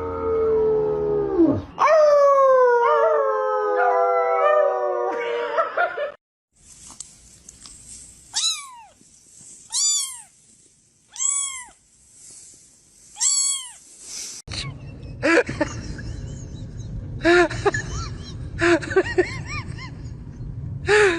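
Pets calling: a long, wavering howl with falling glides for the first several seconds, then a cat meowing, four separate rising-and-falling meows about a second and a half apart, followed by more short cries over a steady background noise.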